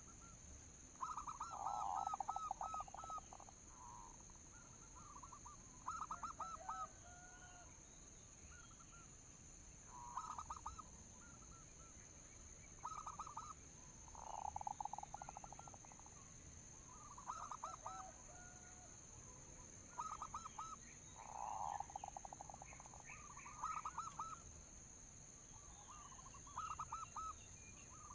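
Zebra dove (perkutut) cooing: short phrases of quick staccato coos, repeating every one to three seconds, over a steady high-pitched whine.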